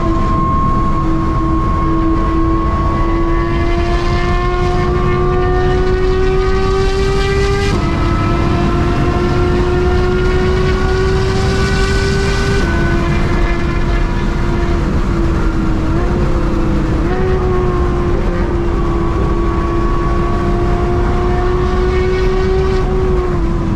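BMW M3 V8 heard from inside the cabin under hard acceleration, its pitch climbing slowly through long gears and dropping sharply at upshifts about a third and about half the way through, with a couple of quick pitch steps around two-thirds in. Steady road and wind noise runs underneath.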